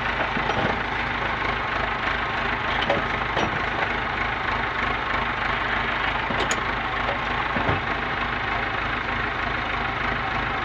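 Engine of the machine working a hydraulic crushing arm runs steadily, with a few faint knocks and cracks as a steel beam presses down on a lawn mower.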